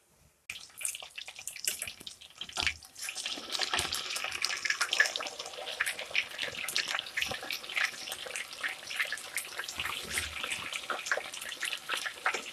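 Grated-raw-potato patties shallow-frying in vegetable oil in a pan: a steady sizzle full of small crackling pops. It starts about half a second in.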